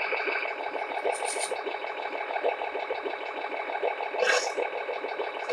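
Electronic engine sound module of a 1/18-scale RC truck playing a rhythmic diesel truck engine through its small speaker, with two short hisses, about a second in and past four seconds.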